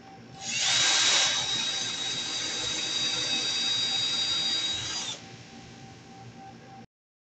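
Cordless drill running with a steady high whine for about four and a half seconds. It starts half a second in, is loudest in its first second, and stops about five seconds in.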